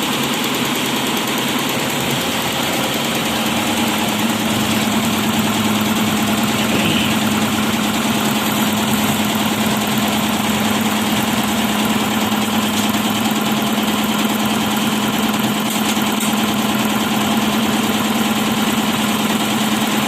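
Four-head computerized embroidery machine running steadily as it stitches, with a steady hum that grows stronger about three seconds in.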